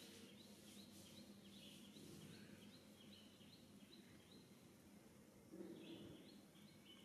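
Near-silent outdoor ambience with a small bird's faint, high chirps repeating about three times a second, pausing briefly a little past the middle.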